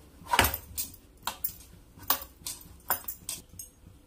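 Steel plate clinking and knocking in a string of short strikes, about two or three a second, as chhena is kneaded and pressed by hand on it.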